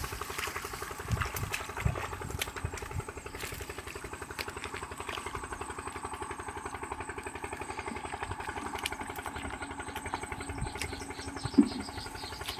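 A small engine running steadily at an even pulse, with a few scattered knocks over it and a brief louder sound near the end.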